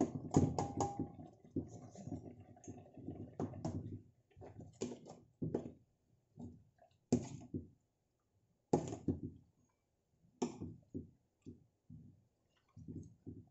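Metal spoon clinking and scraping against a stainless steel pan, stirring and scooping fish in coconut milk sauce, with soft wet sloshing. The clinks come irregularly, busiest in the first few seconds and sparser later.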